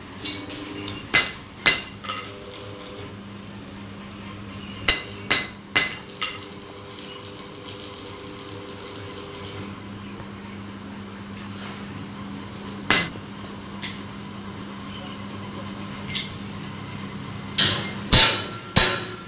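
Sharp metallic clinks and taps at irregular intervals, in small clusters, as a steel rule and hand tools knock against a flat steel strip, over a steady low hum.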